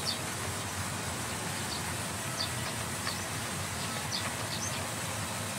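Sawmill band saw running with a steady, even noise while a log is fed toward the blade. Short high chirps sound now and then over it.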